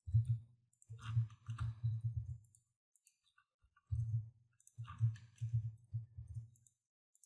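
Computer keyboard and mouse clicks with low knocks, in several short bursts of quick taps.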